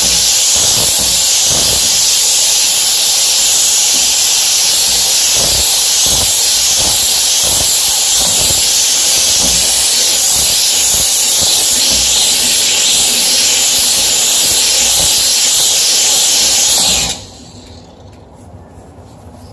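HomeRight SteamMachine steam cleaner jetting steam: a loud, steady hiss with irregular low knocks underneath. The steam cuts off sharply about seventeen seconds in.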